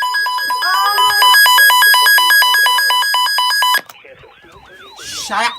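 Electronic alert tone with a harsh, buzzy sound, alternating rapidly between two pitches about four times a second, that cuts off suddenly just under four seconds in. It is followed by quieter warbling tones sweeping up and down and a brief burst of static.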